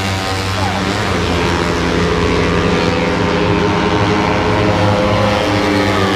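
A pack of underbone racing motorcycles running on the circuit, several engine notes at once rising and falling as the bikes go through the gears.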